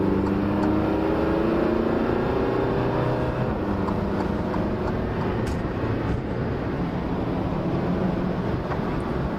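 Alfa Romeo Giulia's 2.2 JTDm four-cylinder turbodiesel accelerating, its engine note rising over the first three or four seconds, then settling into steady engine and road noise as the car drives on.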